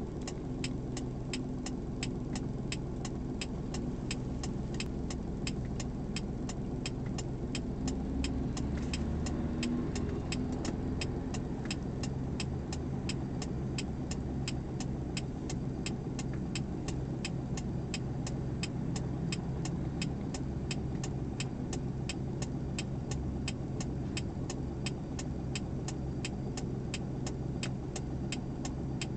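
Car engine idling at a standstill with a steady low hum, under a regular click about two and a half times a second from the turn-signal relay. A louder low rumble swells briefly about a third of the way in.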